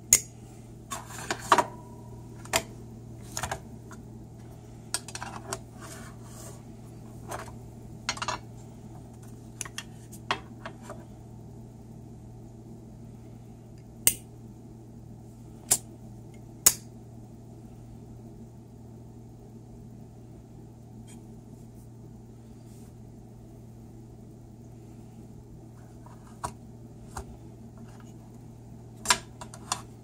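Sharp metal clicks of Zippo-style flip-top lighters being handled: the hinged lids snapping open and shut, and the cases knocking against small tin display boxes. Three loud clicks come close together about halfway through, over a steady low hum.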